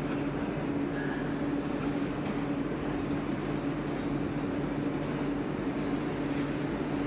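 Electric train humming steadily, a continuous drone with an even rumble beneath it.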